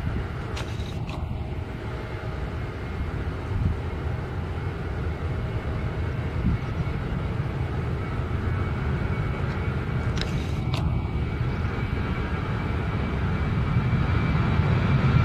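Jet engine rumble from a Ryanair Boeing 737-800's twin CFM56 turbofans as the airliner rolls along the runway, growing steadily louder and strongest near the end as it comes closer.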